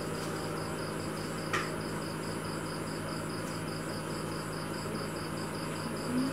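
Steady low hum and hiss from fish-tank equipment, with a high-pitched pulsing chirp repeating about five times a second. A single click about one and a half seconds in.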